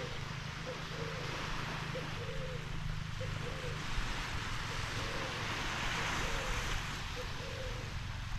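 Small waves washing on a sandy beach, a steady surf hiss. Over it an animal gives short low calls, repeated roughly once a second.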